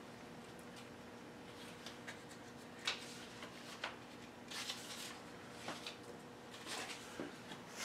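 Faint rustles and light taps of paper number cards being handled and pressed onto a whiteboard, a few short scattered ones from about two seconds in, over a low steady room hum.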